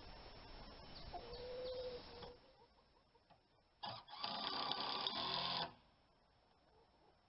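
Hens clucking, one giving a short drawn-out call, and then, about four seconds in, a cordless drill runs for about two seconds and stops abruptly.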